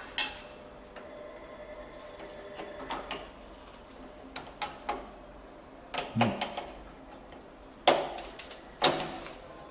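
Sharp clicks and knocks of hand work in a metal breaker box: a screwdriver and gloved hands knocking against the modular circuit breakers, their terminals and the steel enclosure. About eight separate strikes, the two loudest near the end about a second apart.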